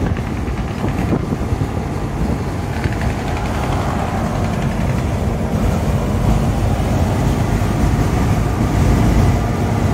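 Engine and road noise inside a moving semi-truck cab: a steady low rumble that grows slightly louder in the second half.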